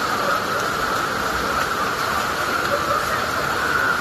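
Heavy rain pouring onto a flooded street, with the floodwater running: a steady, even hiss.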